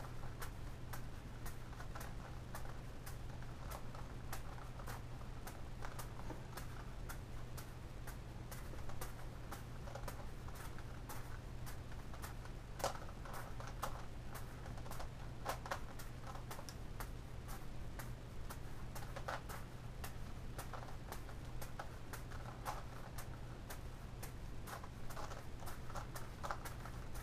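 Irregular plastic clicking and clacking of a Gigaminx puzzle's layers being turned, mixed with soft catches of a juggled ball, over a steady low hum.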